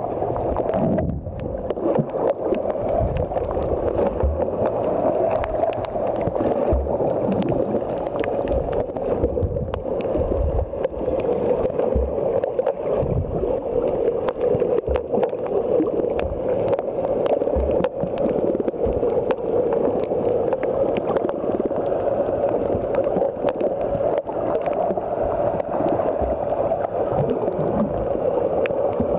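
Muffled underwater water noise from a camera held below the surface: a steady gurgling rush, with a few dull low knocks scattered through it.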